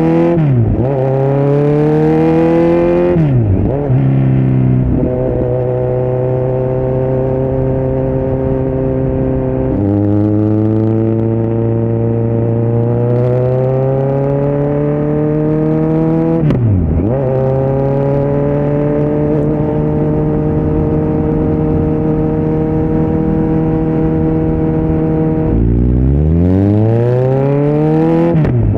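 2018 Kawasaki Z900's inline-four engine under way through a Yoshimura muffler and Delkevic headers with no dB killer. The exhaust note holds steady for long stretches and climbs slowly in pitch, dips sharply and comes straight back three times, and near the end drops low and then rises steadily as the bike accelerates.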